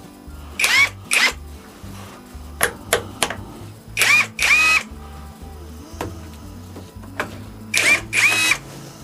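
Power tool with a socket run in short trigger bursts, loosening bolts on an air-cooled VW engine case: three pairs of quick spin-ups, each a whine that rises and then holds. Background music plays underneath.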